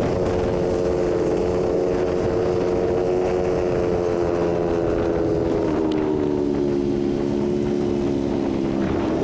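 Honda motor scooter's engine running at cruising speed with a steady drone, over wind and road rumble; its note drops a little about six seconds in and again near the end as the bike slows.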